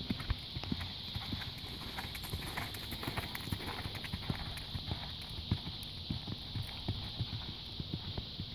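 Hoofbeats of an off-track Thoroughbred cantering on a sandy gravel arena: a run of dull, irregular thuds from the hooves striking the footing.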